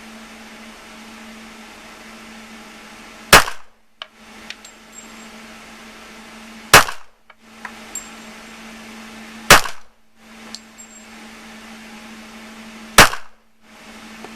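Four handgun shots, about three seconds apart, each a sharp crack, with a few faint metallic clinks between them.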